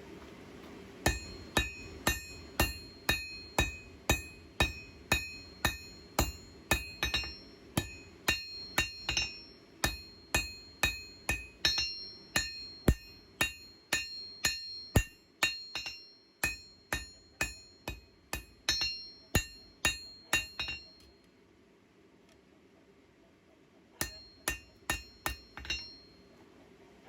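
Hand hammer striking hot steel on an anvil while forging a knife blade, about two blows a second, each with a bright ring. The hammering stops for about three seconds, then a short flurry of blows follows.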